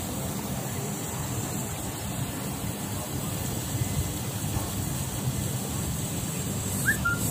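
Steady low rumble of outdoor city background noise, with a short chirp near the end.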